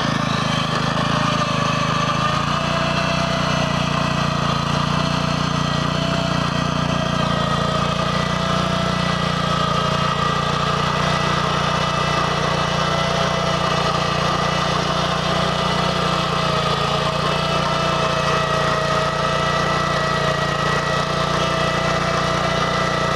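BCS 850 walk-behind tractor's engine running steadily while it drives a Berta rotary plow through hard, new sod, with a steady whine over the engine note.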